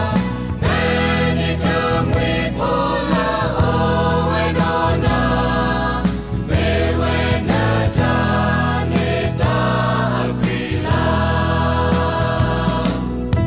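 Sgaw Karen choir singing a song with instrumental backing and a steady beat of about two strokes a second.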